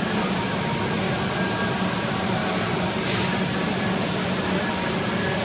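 Kolmag M300 CNC nesting router running with a steady machine noise and a low hum, and a short hiss of compressed air about three seconds in.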